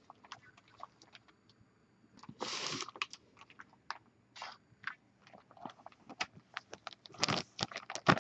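A plastic Ziploc-bag sheet crinkling and being knocked as loose glitter is shaken off it and funnelled back into a jar: a run of sharp crackles and taps, with two short rushes of glitter grains about two and a half and four and a half seconds in, and denser crackling near the end.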